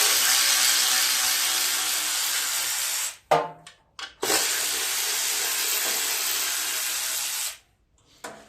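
A power drill with a socket spinning out two 8 mm bolts from the mower, one steady run of the motor for each bolt, the second stopping short.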